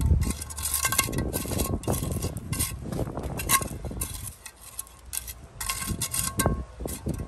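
Steel pointing trowel scraping through a sand-and-grit bedding layer, stroke after stroke, with small metallic clinks as the blade catches stones. There is a short lull past the middle.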